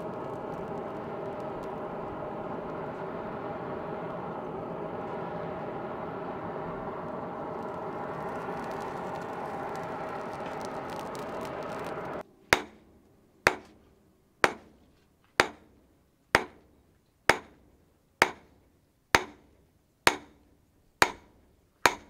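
A forge's air blower running steadily with a constant hum, cutting off after about twelve seconds. Then a hammer strikes a red-hot steel blade on an anvil about eleven times, roughly once a second, each blow ringing briefly.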